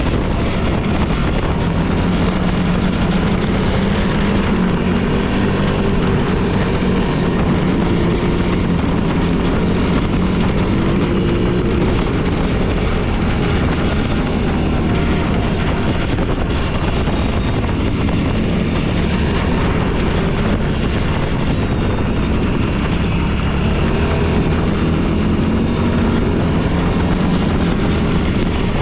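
An off-road vehicle's engine running under way on a trail, its pitch rising and falling with the throttle.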